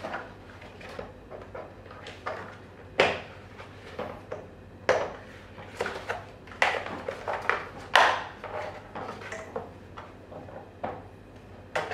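Plastic parts of a TP Toys 4-in-1 toddler trike knocking and clicking as it is handled, lifted and turned around during assembly. A run of irregular knocks, the loudest about three, five and eight seconds in.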